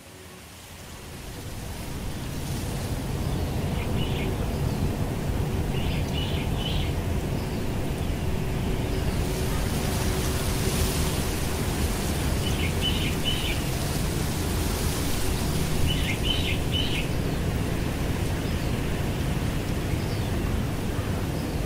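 Outdoor ambience that fades in over the first couple of seconds: a steady rushing background noise, with birds chirping in short groups about four times.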